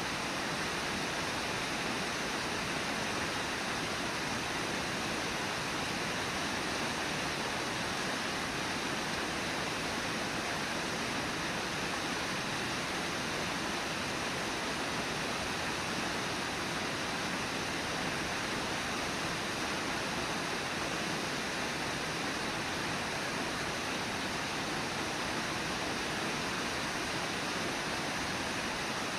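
Brooks River water rushing over shallow riffles: a constant, even rush with no breaks.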